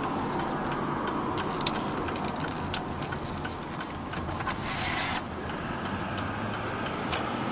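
Steady engine and road noise inside a moving pickup truck's cab, with a few scattered light clicks and a brief rushing noise about five seconds in.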